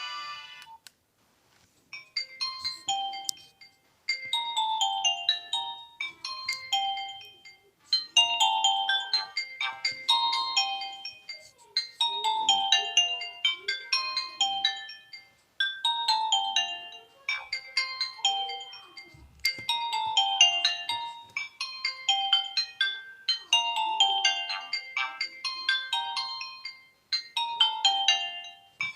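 Nokia 1616 mobile phone ringtone: a polyphonic melody of short, bright notes, in phrases that repeat about every two seconds. It starts about two seconds in, after a brief pause.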